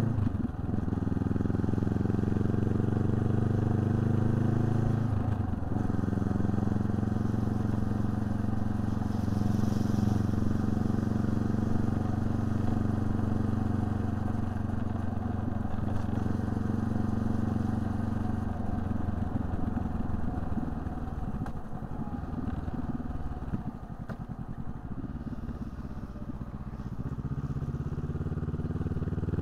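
Honda CB500X's parallel-twin engine running at steady road speed, its note shifting about five seconds in. From about two-thirds through, the engine note falls away and quietens as the bike slows, then picks up again near the end.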